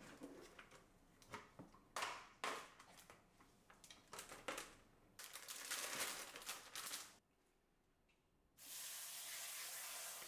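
Plastic bagged-salad packaging crinkling and a plastic salad spinner being handled, with salad tipped from a bag into a bowl. After a short silence a kitchen faucet runs steadily into a bowl of lettuce.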